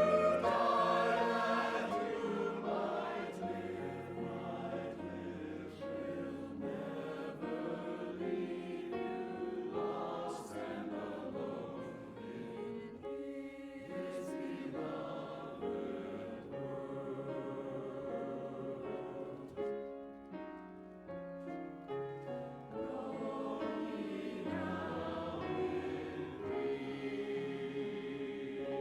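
Church music: choral singing in sustained chords over long, low bass notes.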